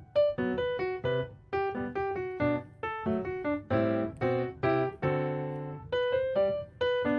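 Background music: a piano playing a quick melody of separate notes, with a few held chords partway through.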